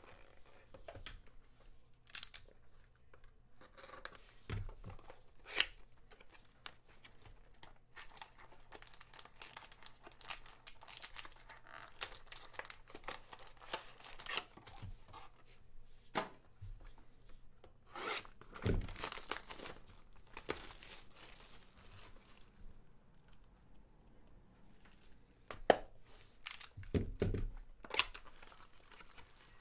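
Hands tearing the plastic shrink-wrap and cardboard of a sealed trading-card hobby box and opening it, with crinkling and scattered taps and clicks from handling the box. The longest tearing comes about two-thirds of the way through, and a sharp click stands out near the end.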